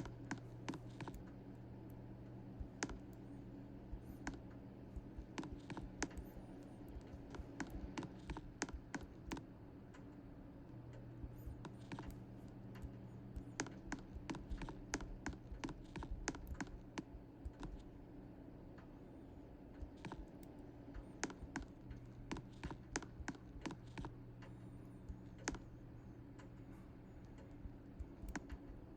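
Irregular light clicks and taps, several a second in places, over a steady low hum.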